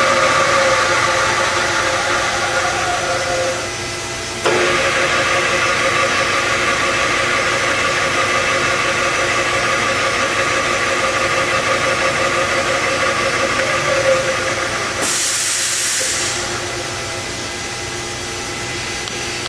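Wilton 2223VS 20-inch variable speed drill press running with a steady machine whine made of several tones whose pitch drifts a little. The sound dips and then jumps back up suddenly about four seconds in. A brief hiss comes near the end, and then the level drops for the last few seconds.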